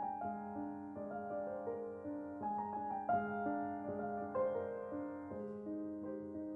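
Background piano music: a slow melody of changing notes over a held low note.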